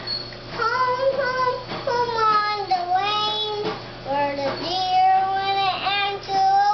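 A young child's high voice singing in short phrases, the pitch gliding up and down, over a steady low hum.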